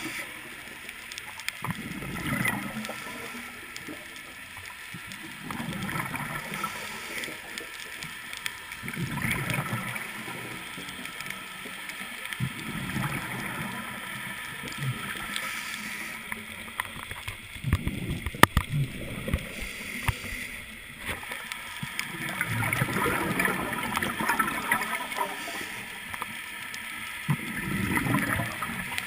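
Scuba diver's exhaled bubbles leaving the regulator, heard through an underwater camera housing: a gurgling rush every few seconds with each breath out, over a steady underwater hiss. One sharp click about two-thirds of the way in.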